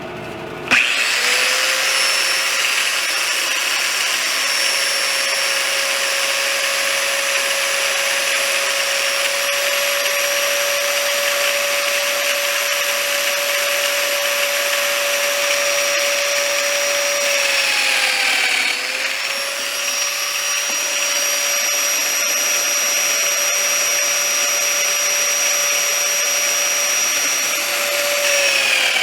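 Festool Domino joiner's motor running at speed while cutting mortises for 5 mm by 30 mm dominoes: a steady, high whine that starts about a second in, sags in pitch briefly about two-thirds of the way through, picks up again and stops at the end.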